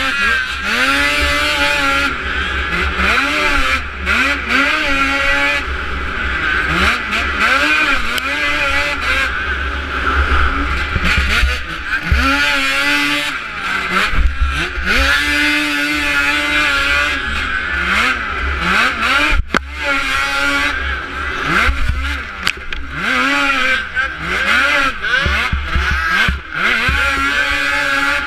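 Arctic Cat snocross race snowmobile's two-stroke engine revving hard and falling off again and again as it is raced around the track, the pitch climbing and dropping every second or two, over a heavy low rumble.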